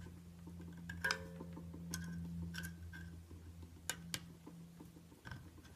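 A screwdriver tip clicking and scraping lightly against the aluminium body of a 200-4R transmission front pump while prying at a small spring: about six scattered metallic ticks over a steady low hum.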